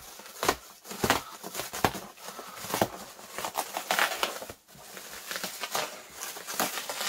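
Clear plastic packaging wrap crinkling and rustling in irregular bursts as it is handled, pulled and cut away from a boxed item.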